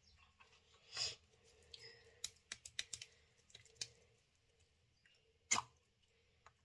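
Light clicks and taps of plastic popsicle moulds being handled as frozen pops are slid out of their sleeves, with a sharper knock about a second in and another about five and a half seconds in.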